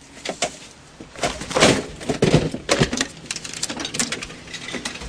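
Payphone being used: a run of irregular clicks and knocks from the handset, coin slot and keypad, loudest as a cluster of clatter between about one and three seconds in.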